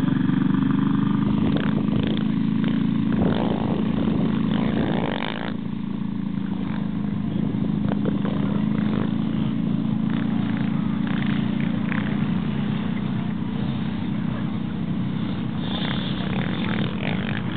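Quad bike (ATV) engine running steadily at low revs, with no revving. Voices are heard briefly in the first few seconds.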